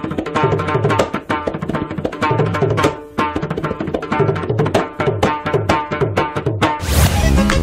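Background music carried by a fast run of drum strokes. A swell of noise near the end leads into a different track.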